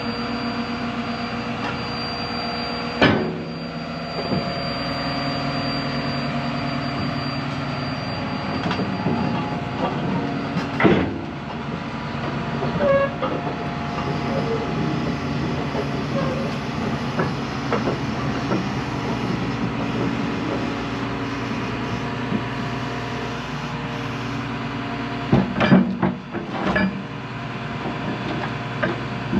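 A John Deere 210G excavator's diesel engine running steadily, with a few sharp knocks: one about three seconds in, one around eleven seconds, and several close together near the end.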